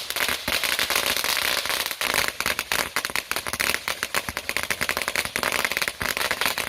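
Consumer firework going off: a dense, rapid run of sharp cracks and loud bangs, many per second.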